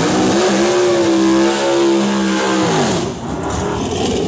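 Drag race car engine revving up sharply, holding high revs for about two and a half seconds, then its pitch drops away and the sound fades.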